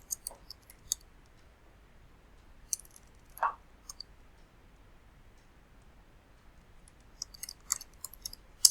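Sporadic clicks of a computer mouse and keyboard, in small clusters with quiet gaps between them.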